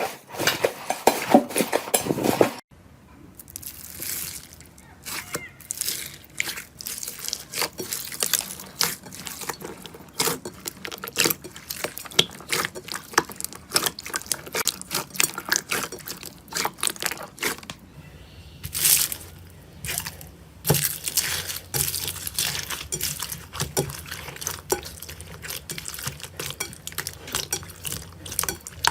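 Slime being squished and stretched by hand: a dense run of sticky, wet clicks and pops, changing abruptly about two and a half seconds in.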